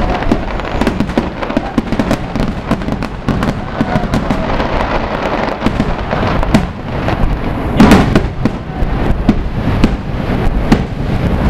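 Fireworks display: aerial shells bursting with dense, rapid crackling and popping, and one louder, deeper boom about eight seconds in.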